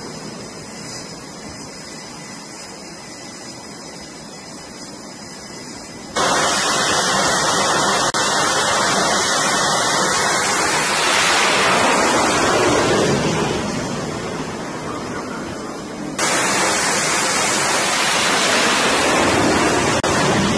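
Jet engines at full power during catapult launches from the carrier deck. A steady hiss for about six seconds, then a sudden loud jet roar that swells and fades, and a second sudden roar about ten seconds later.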